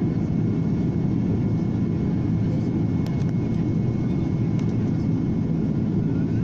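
Steady rumble of an airliner cabin in flight: the engines and airflow making a constant low drone that does not rise or fall.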